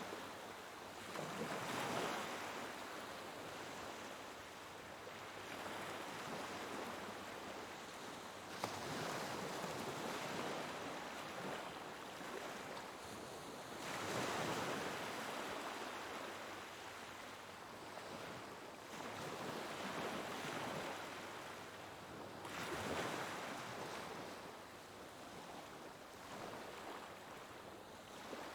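Ocean waves breaking and washing on a shore, a swell of surf every five or six seconds over a steady rush of water.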